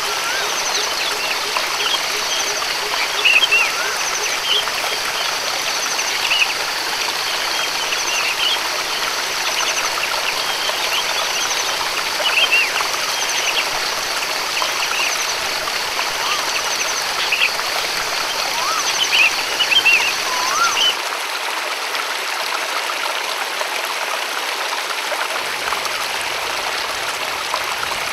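Waterfall and stream water running steadily, with birds chirping repeatedly over it. About three-quarters of the way through, the sound changes abruptly: the birds drop out and only the rushing water remains, thinner in the low end.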